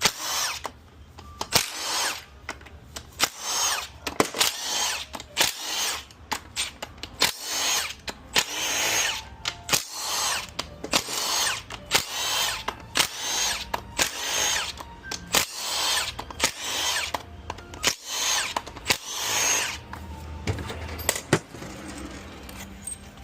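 Handheld power tool run in short bursts, about one a second, each a whine that rises and falls, with sharp metallic clicks between: fasteners being run out while a 4L60E four-speed automatic transmission is torn down. The bursts stop near the end, leaving only clicks.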